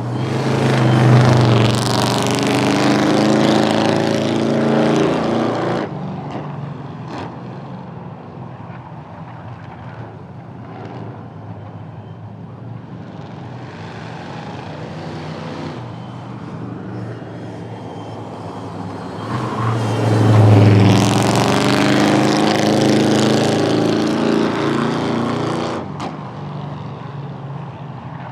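Drag-racing cars running at full throttle down the strip, twice: two loud runs of about six seconds each, about twenty seconds apart, each cutting off suddenly, with lower engine noise between them.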